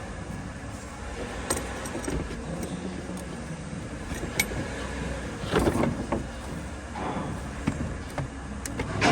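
Scattered metal clicks, knocks and rattles of hand work in an engine bay as a replacement alternator and its mounting bolts are fitted. There is a denser rattle about five and a half seconds in.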